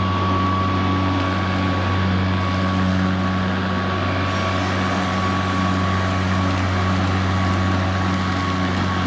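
Greenworks 40-volt 21-inch battery lawn mower running steadily while cutting grass, its electric motor and blade held at the lower of its two automatic speeds: an even low hum with a thin steady whine above it.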